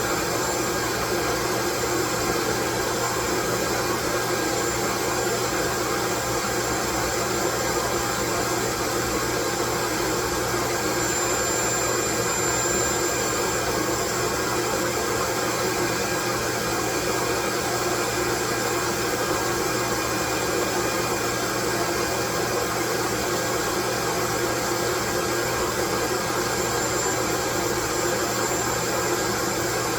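Loud, steady white noise: an even hiss that does not change, with a faint high whistle running through it.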